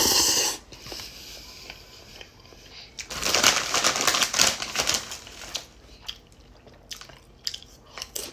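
A bag crinkling and crackling in two spells: briefly at the start, then for about two seconds from some three seconds in, with scattered small crackles after.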